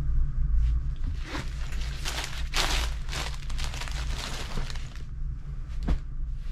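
Cloth rustling as a garment and towel are handled and unfolded on bedding, over a steady low hum. A single sharp click comes about six seconds in.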